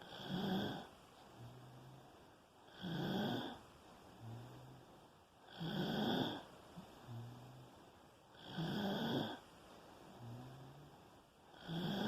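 A sleeper snoring in a steady rhythm: a loud snore about every three seconds, with a softer, low-pitched hum between each pair of snores.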